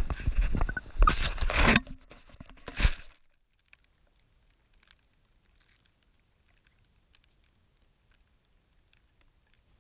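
Handling noise of a camera being carried and set down in grass: dense rustling, scraping and knocks on the camera, heaviest in the first two seconds. About three seconds in it drops suddenly to near silence, broken only by a few faint clicks.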